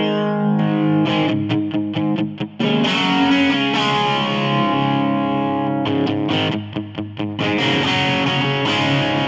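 Electric guitar played through a Roland Micro Cube practice amp, chords and notes ringing with a distorted tone from an effects pedal. The playing breaks off briefly a couple of times between phrases.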